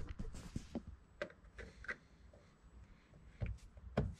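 Scattered light clicks and taps of a small hand tool against plastic car door trim as a trim piece is pried up, with a couple of sharper clicks near the end.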